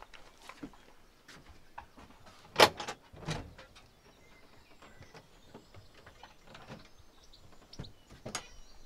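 A wooden cabin door being unlatched and opened, with two sharp knocks or clacks about two and a half and three and a half seconds in, and another click near the end.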